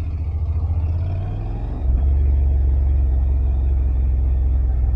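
Honda NC750X motorcycle's parallel-twin engine running with a steady low hum, growing louder about two seconds in.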